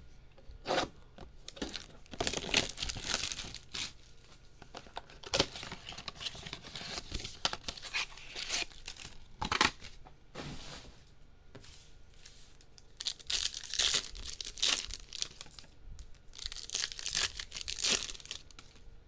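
A baseball card blaster box and its card packs being torn open by hand: wrappers ripping and crinkling in irregular bursts, with sharp snaps of cardboard and foil.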